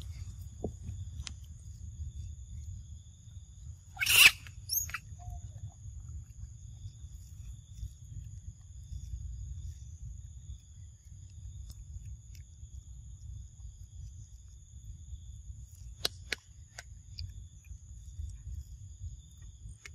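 Outdoor forest ambience: a steady low rumble under a thin, steady high-pitched hum at two pitches. About four seconds in comes one short, loud, sharp sound, and a couple of faint clicks follow near the end.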